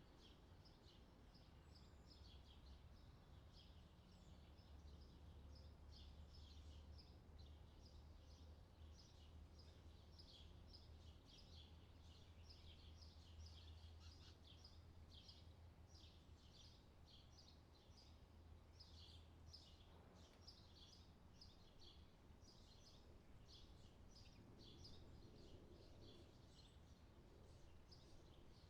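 Small birds chirping faintly and continually, several short high chirps a second, over a low steady hum.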